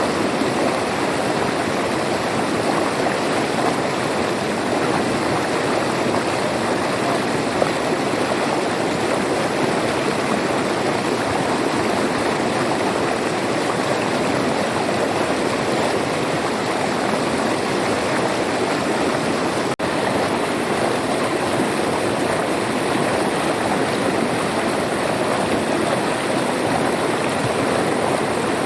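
River water flowing steadily, an even rushing with no change, broken only by a momentary dropout about twenty seconds in.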